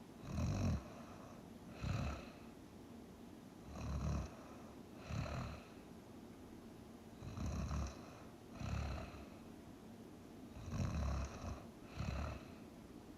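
A person snoring while asleep, in a slow steady rhythm: the snores come in pairs about a second apart, four pairs in all, one pair roughly every three and a half seconds.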